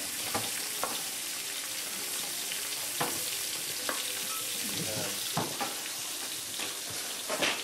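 Battered fish pieces sizzling in oil in a stainless steel skillet, stirred with a wooden spatula that clicks and scrapes against the pan several times.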